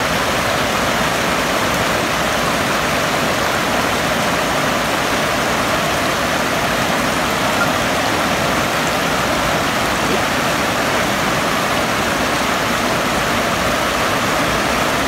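Fast-flowing river water rushing steadily over a low weir.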